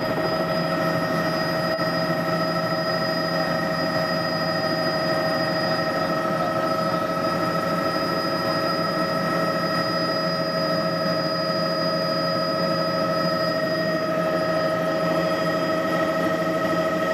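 Helicopter engine and rotors heard from inside the cabin while climbing away from the ground: a steady, unbroken run with a constant whine over the rotor noise.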